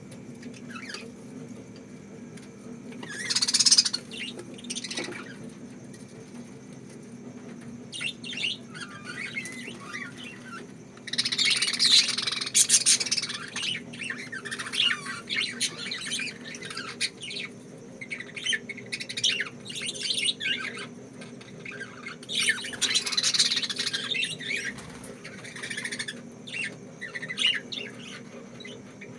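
Pet lovebirds chirping and squawking in bursts, loudest about eleven to thirteen seconds in and again near twenty-three seconds, over a steady low hum.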